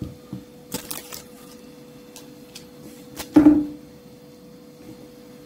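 Wooden rolling pin knocking and rolling on pie dough over parchment paper on a table: a few light knocks and paper rustles in the first second or so, then one louder knock about three and a half seconds in.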